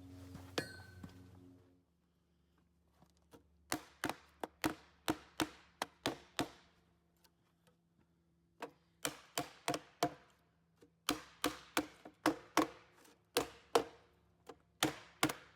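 A steady hum dies away about two seconds in. After that come sharp knocks with a short ring, two or three a second, in several bursts with pauses between them.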